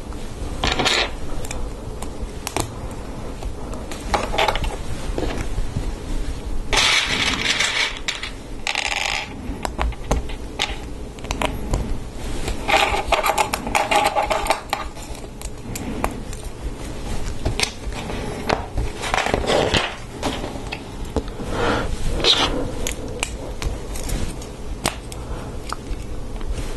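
Hard plastic LEGO Technic pieces clicking and scraping as they are handled and pressed together, with pins and small parts pushed into a lime-green beam. Many short clicks, with longer scraping stretches about seven seconds in and again about thirteen seconds in, over a faint low hum.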